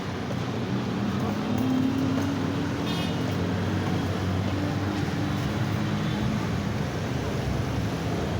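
Road traffic: motor vehicles running past, with a low engine drone that swells about two seconds in and fades out later, over a steady traffic hum.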